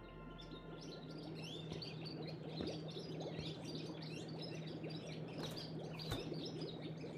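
Many small birds chirping and twittering in quick, overlapping calls over a steady low hum, as in a pet shop.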